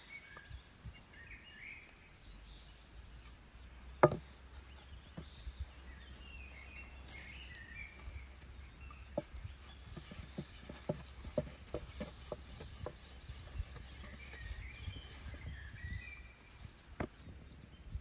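Open-air ambience with small birds chirping now and then. Scattered sharp knocks and taps cut through it, the loudest a single knock about four seconds in, and a run of separate taps comes later.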